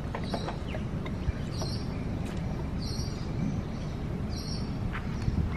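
Oranges being pressed and twisted by hand on a ceramic reamer juicer, with a short wet scraping squish about every second and a half and a few light knocks, over a steady low rumble of wind on the microphone.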